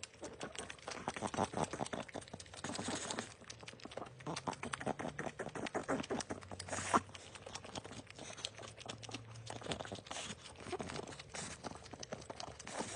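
A pug licking and chewing food off a glass plate: a quick, uneven run of wet smacks and clicks.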